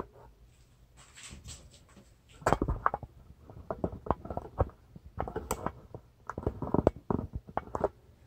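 Hard fish-finder mounting hardware and tools being handled: irregular clicks, taps and light rattles in several clusters, the loudest group about two-thirds of the way through.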